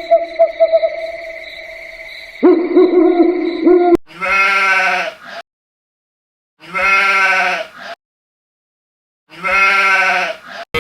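For about four seconds, a continuous hooting animal call with steady pitched tones. After an abrupt cut, three long, wavering bleats of about a second and a half each, separated by silence.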